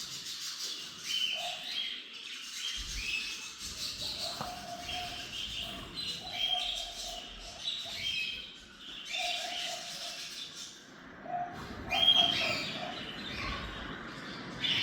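Small parrots chirping in a series of short, repeated high calls, several birds overlapping.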